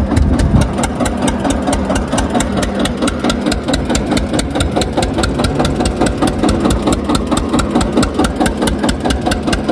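Tractor's diesel engine idling with a steady, even knock of about five beats a second.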